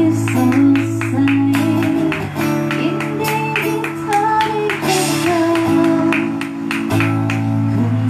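Live acoustic music: a guitar strummed in a steady rhythm under sustained low notes, with a singer's melody over it.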